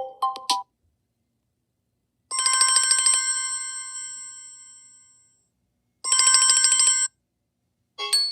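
Samsung Galaxy A03s ringtones playing: the last notes of a short melody, then a fast ringing trill in two bursts about four seconds apart. The first burst rings out for about three seconds, and another chiming melody starts near the end.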